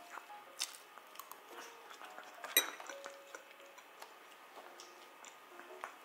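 Metal fork clinking and tapping against a ceramic plate: a few light clicks, with one sharper clink that rings briefly about two and a half seconds in.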